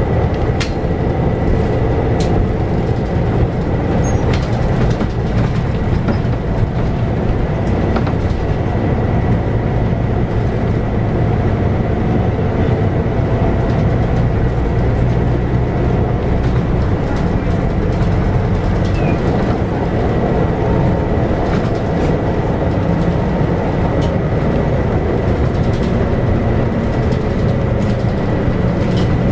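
Scania K94UB bus with its 9-litre six-cylinder Scania DC9 diesel running steadily, heard from inside the cabin. A steady high whine runs through it, with occasional clicks and rattles.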